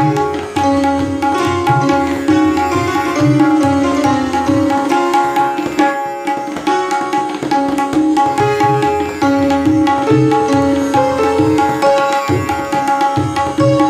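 Tabla playing a kayda: fast strokes on the right-hand drum over rhythmic bass strokes on the left-hand drum, against a tanpura drone and a melody line. The bass strokes drop out about five seconds in, return about two seconds later, and drop out again briefly near the end.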